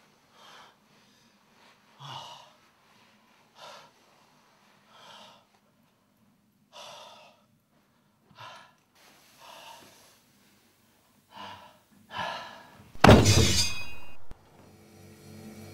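About nine short breathy bursts, a second or so apart. Then a loud crash with a high ringing tail about 13 seconds in, and a low steady hum starting near the end.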